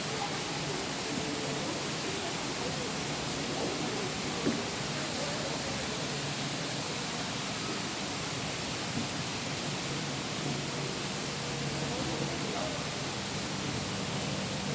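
Steady, even rushing noise, with faint voices in it.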